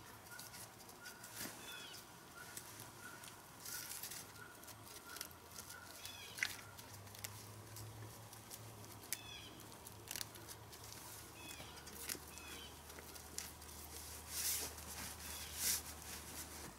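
A carport's canvas cover being handled and fastened with Velcro to the frame pole, giving faint rustling with short noisy rasps, louder near the end. A bird chirps briefly every few seconds in the background.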